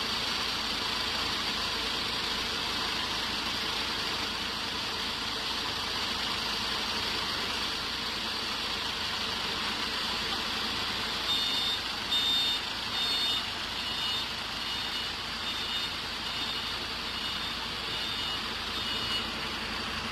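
Diesel generator set with a Shanghai 12V135BZLD1 V12 engine running at a steady speed. From about eleven seconds in, short high beeps sound roughly twice a second for several seconds and fade out.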